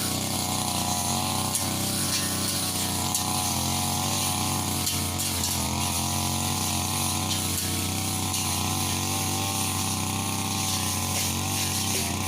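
Brush cutter's small engine running steadily at high speed, its pitch dipping and rising slightly as it works.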